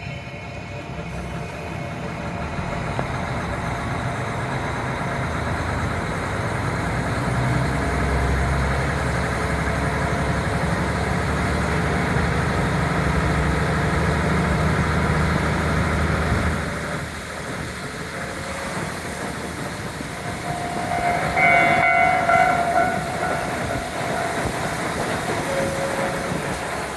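KiHa 40 diesel railcar's engine pulling under power with wheel and rail noise and wind rushing through an open window. About 17 seconds in the engine drops back and the train coasts, and a few seconds later a short, high-pitched tone sounds.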